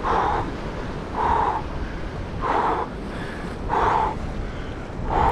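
A bird calling five times at an even pace, a short call about every second and a quarter, over wind buffeting the microphone.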